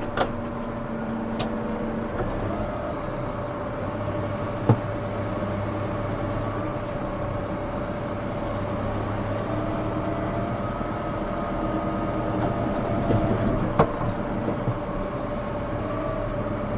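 Tractor engine running steadily as the tractor drives, heard from inside the cab, with a constant whine over the hum. Two sharp knocks about nine seconds apart.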